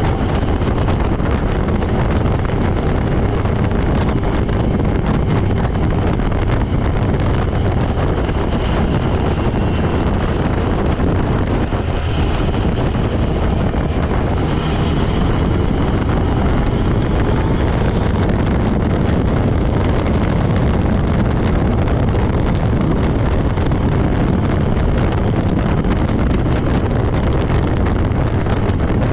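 Motorcycle engine running steadily at cruising speed, with wind buffeting the bike-mounted camera's microphone.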